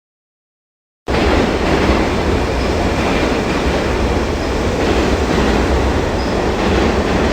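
A train running steadily on the rails, a continuous rumble of wheels and cars that starts abruptly about a second in after a short silence.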